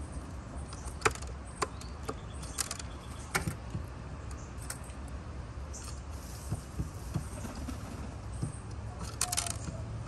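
Rock pigeon pecking at seeds on a wooden table beside a ceramic peanut dish: sharp, irregular beak taps and clicks, with a quick cluster of them near the end, over a steady low background rumble.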